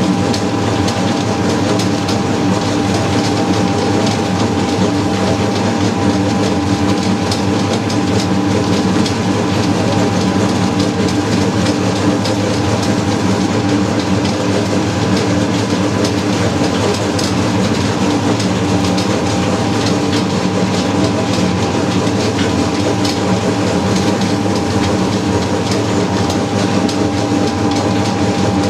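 Naswar (snuff) grinding and mixing machine running steadily, its iron pan turning as the tobacco mixture is worked, with a constant mechanical hum and rumble.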